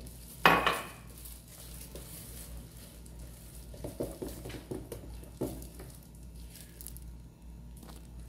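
Spatula stirring thin cake batter in a mixing bowl, with scattered scrapes and clicks against the bowl. A single loud knock comes about half a second in.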